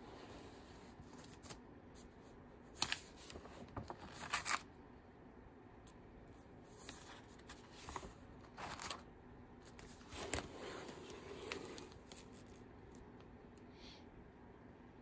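Pages of a spiral-bound paper sketchbook being handled and turned: a scattered series of short paper rustles and scrapes, the loudest about three and four seconds in.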